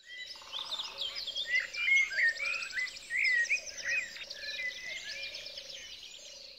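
Several birds singing, with varied whistled notes, quick rising and falling glides and fast trills. A low, steady pulsing trill runs underneath.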